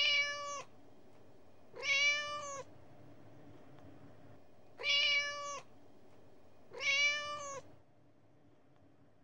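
A cat meowing four times, each meow a drawn-out call held at a steady pitch, two to three seconds apart, over a faint steady hiss.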